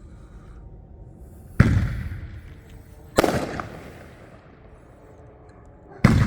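Fireworks exploding: three loud bangs, roughly a second and a half to three seconds apart, each dying away over about a second.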